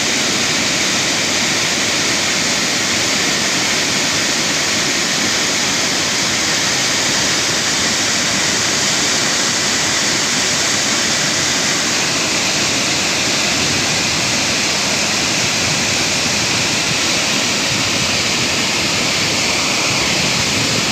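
Waterfall, water falling and crashing in a loud, steady rush that does not change.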